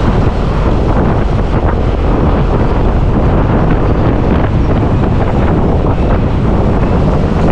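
Steady wind noise buffeting the microphone of a moving vehicle, with low road rumble underneath.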